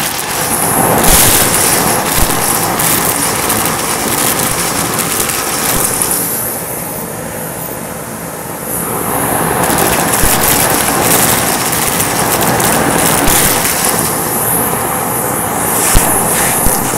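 Vacuum cleaner running loud and steady while picking up a test mess of debris, with scattered small clicks. Its high hiss drops back twice, for a few seconds around the middle and again near the end.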